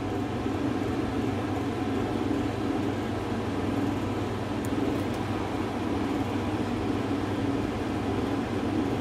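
Steady low mechanical hum with an even hiss over it, with a couple of faint ticks about halfway through.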